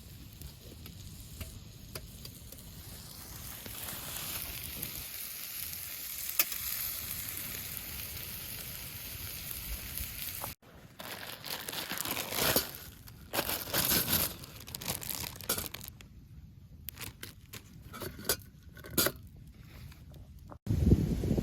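Meat frying in a pan over campfire coals: a steady sizzle that builds over the first ten seconds. Then, after an abrupt cut, scattered crackles and clicks.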